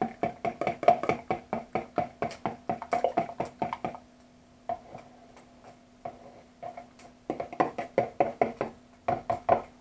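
A fork beating eggs, milk and butter in a plastic measuring jug, tapping against the jug's sides in rapid clicks about five a second. The beating stops for about three seconds midway, then starts again.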